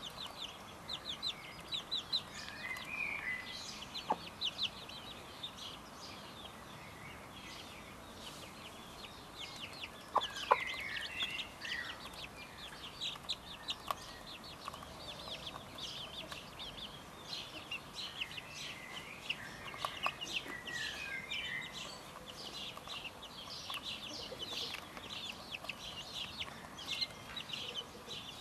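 Young gamefowl chicks peeping continuously in short, rapid, high-pitched peeps, with a few longer wavering calls now and then.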